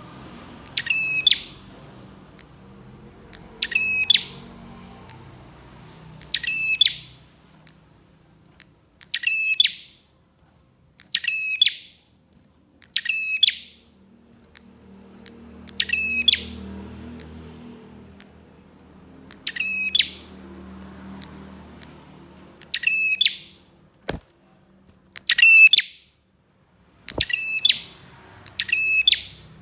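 Prenjak songbird giving a short, loud, rapidly trilled call, repeated about every two seconds. This is the calling used as a lure to excite other prenjaks. Two sharp clicks come near the end.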